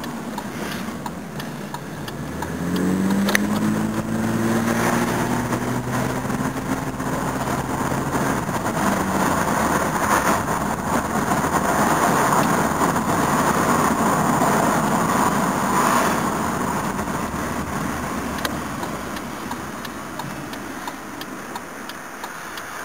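Toyota Cressida's 5M straight-six engine pulling the car along: its note rises from about two seconds in and then levels off. Road and wind noise then builds and slowly dies away.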